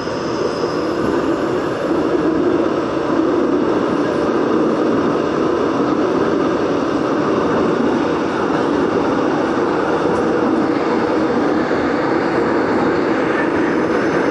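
A Daegu Metro Line 2 train running at speed through a tunnel: a steady rumble of the wheels on the rails, growing a little over the first couple of seconds and then holding level.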